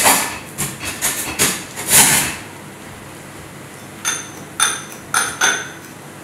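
Kitchen clatter of metal utensils against pots and pans. A run of knocks and scrapes, loudest about two seconds in, is followed after a pause by four or five sharp clinks that ring.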